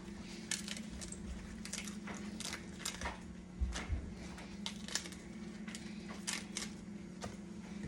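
Crisp, irregular snapping and crunching of romaine lettuce leaves being prepped by hand, with a steady low hum underneath.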